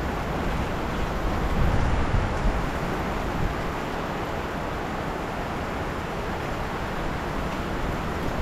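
Heavy rain pouring steadily in a rainstorm, with wind rumbling on the microphone; it swells louder for a moment about two seconds in.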